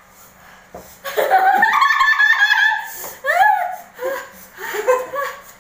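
A man and a woman laughing together in fits, with a high rising squeal of laughter about three seconds in.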